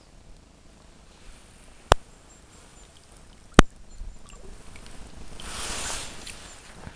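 Two sharp knocks about a second and a half apart, then a brief swell of water splashing and swishing as a hand releases a small trout into the stream.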